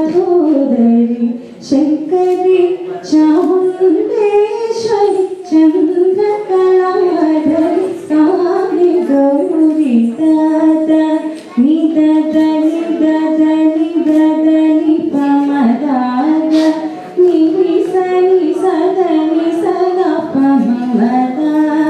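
A young woman singing solo into a handheld microphone, holding long notes with ornamented bends and slides in pitch, pausing briefly between phrases.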